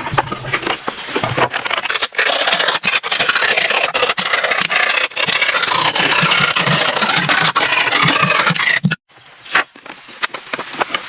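Continuous scraping and rasping of a tool working wood, loud, which breaks off suddenly about nine seconds in and gives way to a quieter sound.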